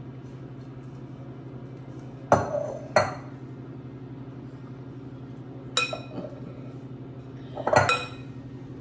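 Glass mixing bowl and silicone spatula knocking against a glass baking dish as batter is scraped out and spread: four short clinks, one of them ringing briefly, over a steady low hum.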